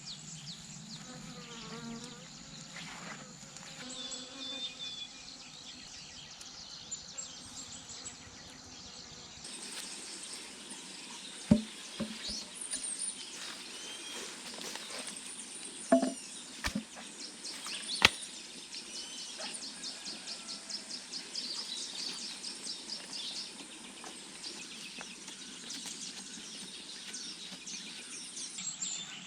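Rural outdoor ambience: insects buzzing and small birds chirping, broken by three sharp knocks near the middle.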